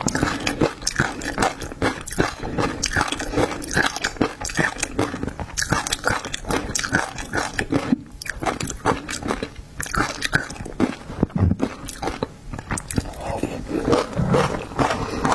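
Close-miked eating: wet chewing and biting of seafood, a dense run of smacks and crunches with brief pauses about halfway through and again a little later.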